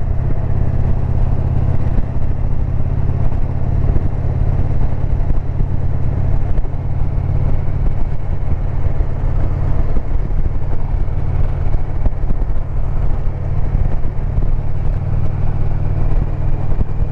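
2022 Indian Pursuit motorcycle's V-twin engine running steadily while the bike cruises on the road.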